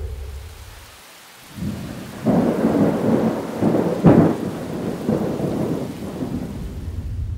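Steady rain with a rolling rumble of thunder. The thunder builds about a second and a half in, is loudest around four seconds, then dies back into the rain.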